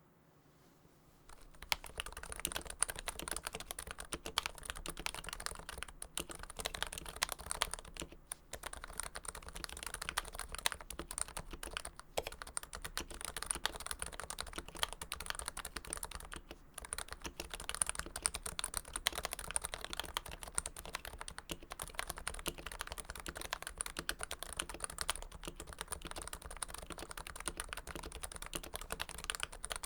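Typing on a Realforce keyboard with lubed Topre switches (Krytox 105), a Realforce Hipro plate fitted in a first-generation Realforce TKL case. Fast, continuous keystrokes start about a second and a half in, with a couple of short pauses.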